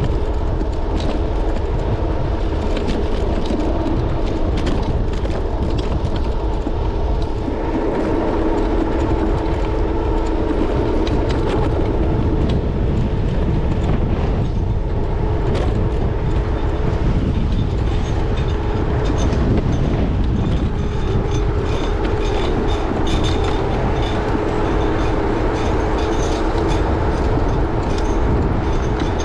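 Electric scooter riding along, heard through its handlebar-mounted camera: a steady rumble of wind and road on the microphone, with a constant hum and frequent rattling ticks from bumps.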